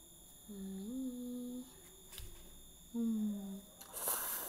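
A woman humming two short closed-mouth "mmm" sounds while eating, the first rising in pitch and the second falling, then a quick slurp of noodles near the end.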